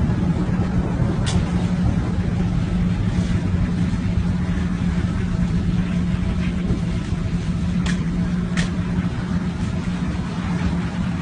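Steady low drone of a running engine, with a few short clicks: one about a second in and two more around eight seconds in.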